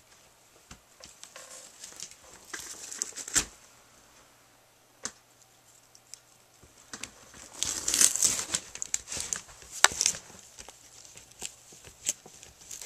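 A puppy tearing and chewing at a cardboard box, ripping and crinkling the cardboard with a few sharp snaps. It comes in two spells: a short one a few seconds in and a longer, louder one about two-thirds of the way through.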